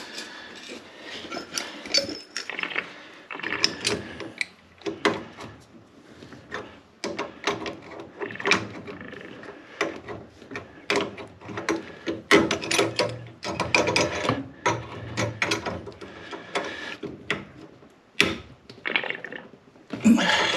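Pliers and an adjustable spanner working a brass pump isolation valve, tightening its compression nut onto the pipe: many irregular metallic clicks, knocks and scrapes.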